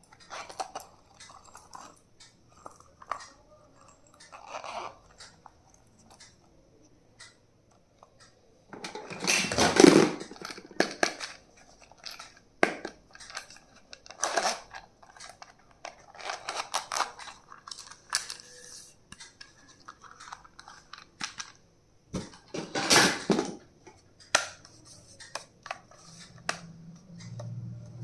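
Stationery items and their packaging being handled: scattered small clicks and taps, with two louder rustling bursts, one about ten seconds in and one about twenty-three seconds in.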